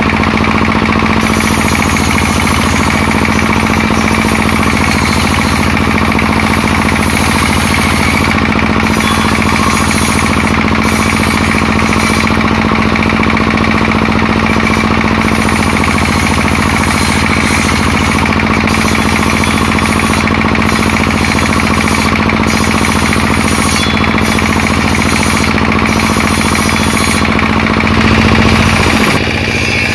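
Table-mounted circular saw ripping waru wood into boards, running steadily with a loud, rattling, constant noise. About two seconds before the end, it briefly gets louder and a pitch slides downward.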